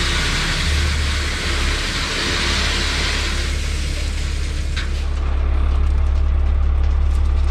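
Heavy machinery engine running steadily with a hissing noise over it that fades about four seconds in, after which the engine grows louder with a steady pulse.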